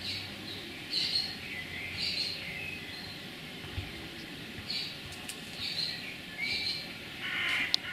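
Birds singing and chirping, short high calls repeating about once a second, with a single sharp click near the end.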